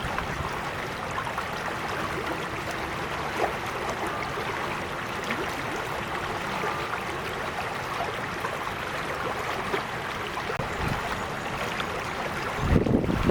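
Shallow creek water flowing steadily, with small trickles and splashes. Near the end a brief low rumble of wind buffets the microphone.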